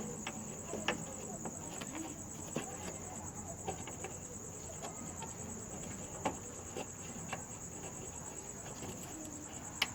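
Steady, high-pitched insect chirring, with scattered light clicks and taps.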